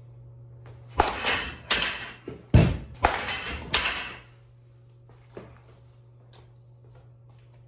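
A baseball bat strikes a ball off a tee with a sharp crack about a second in. A run of knocks and rattling follows for about three seconds as the ball hits the net and the clutter around it, with the loudest thud about halfway through. A low electrical hum runs underneath.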